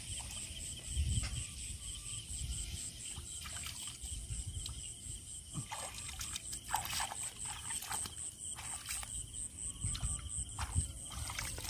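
Night insects chirping in a steady, rapid pulsing rhythm, with water splashing and trickling as a cast net is hauled in by hand from a shallow fish pond.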